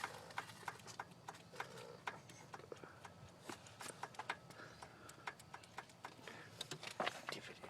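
VW AAZ 1.9 TD diesel engine running with irregular sharp knocks, several a second, over a faint low hum; the owner takes the knocking for piston slap.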